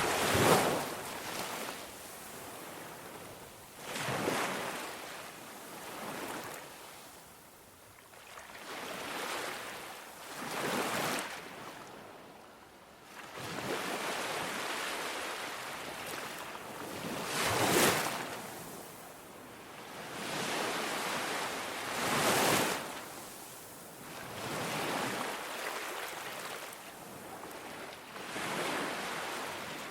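Ocean waves breaking on a beach: a surge of surf every three to four seconds, each swelling and washing away.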